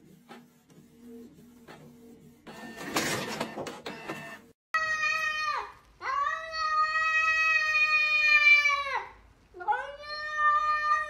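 A cat meowing in three long, drawn-out calls, steady in pitch; the middle call lasts about three seconds. Before the calls, in the first few seconds, there is a fainter whirring and rustling.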